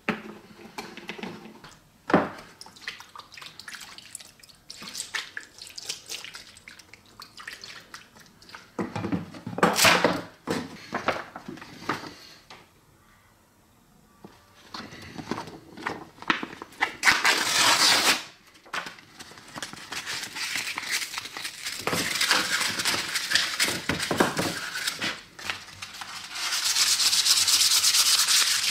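Hand wet-sanding with 3M P800 wet-and-dry abrasive paper on a painted metal sign: a rasping, scrubbing rub that becomes steady and louder over the last few seconds. Earlier there are scattered handling, rustling and water sounds as the wet paper is picked up and shown.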